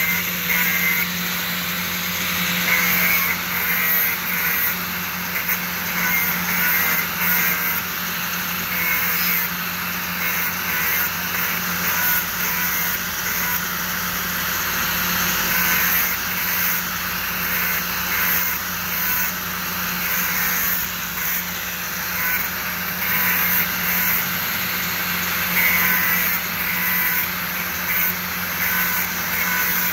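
Electric angle grinder running steadily, its disc grinding against the steel backing plate of a car brake pad, the noise wavering slightly as the pad is pressed to the disc.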